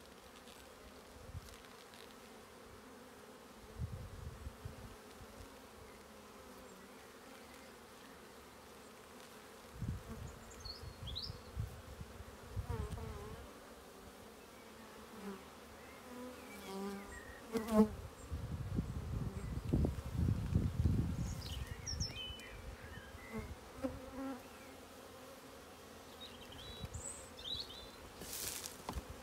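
Honeybee colony humming steadily from an opened hive while a frame is lifted out. Low rumbles come and go in the middle, with a sharp knock a little past halfway.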